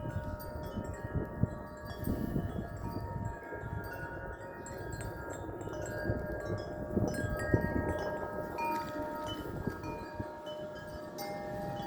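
Metal wind chimes ringing in strong, gusty wind: many tubes are struck at irregular moments and their tones overlap and hang on. Wind rumbles on the microphone underneath.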